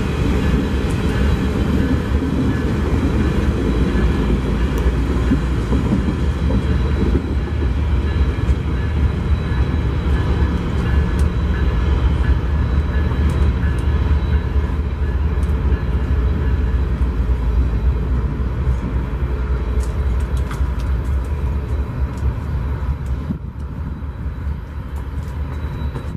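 A train rolling past on the rails: a loud, steady rumble of wheels and cars that eases a little near the end.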